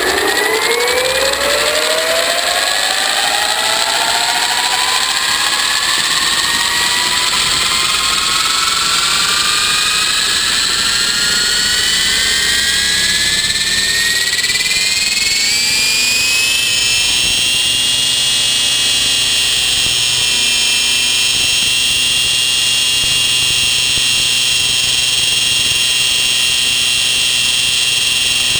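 Electric Rave 90 ENV radio-controlled helicopter spooling up. Its motor and rotor-drive whine rises steadily in pitch over about sixteen seconds as the rotor comes up to speed, then holds at a steady high whine.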